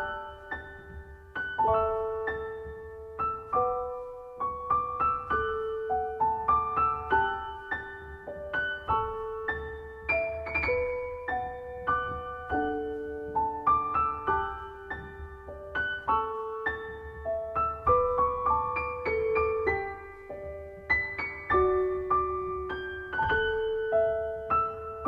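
Background piano music: a slow piece of struck notes over held bass notes.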